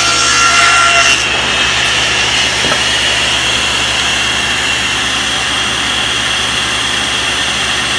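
Table saw blade finishing a shallow test cut through a scrap of wood, the cutting noise dropping off about a second in. The saw then keeps running steadily without load.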